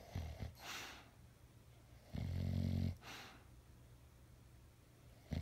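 English bulldog snoring in his sleep: one low snore lasting under a second about two seconds in, followed by a breathy exhale, with a few soft smacks at the start and the next snore beginning at the very end.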